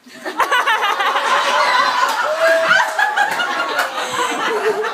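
A crowd of guests bursts into loud laughter about a third of a second in. The laughing goes on with overlapping voices, and one voice holds a long sliding call in the second half.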